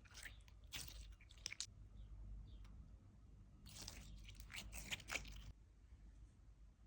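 Slime being pressed and squeezed by hand, giving faint crunchy crackles in two bursts, one at the start and one about four seconds in.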